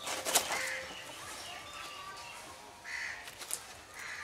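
A banana leaf being cut from the plant with a knife: sharp slicing and tearing cracks in the first half second, then the stiff leaf rustling as it is handled, with another crack near the end. Crows caw a few times.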